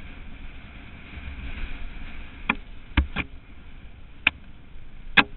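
Downhill mountain bike descending a dirt trail: a steady rush of wind and tyre noise, with five sharp knocks and rattles from the bike over the bumps in the second half, the loudest near the end.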